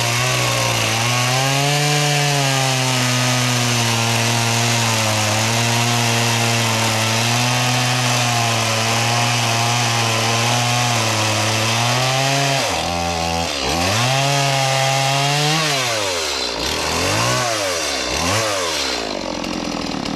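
Two-stroke chainsaw running at high throttle, steady for about twelve seconds, then revving down and back up several times before cutting off.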